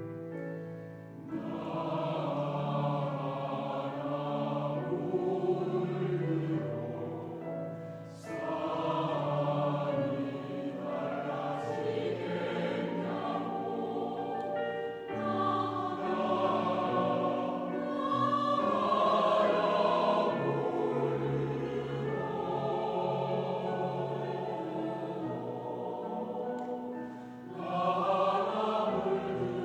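Choir singing a slow Korean choral song in long sustained phrases, with short breaths between phrases a few times.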